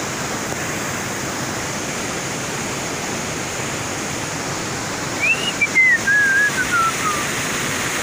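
Hill river in spate after heavy rain, rushing steadily over rocks. About five seconds in, a thin whistle falls in pitch over about two seconds.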